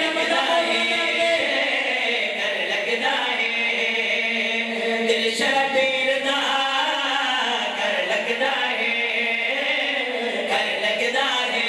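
A group of men chanting a noha (Shia lament) in chorus into a microphone: one voice leads with long held notes and the others sing with him, without instruments.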